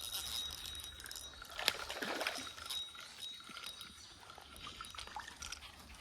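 Shallow creek water trickling, with a few faint clicks.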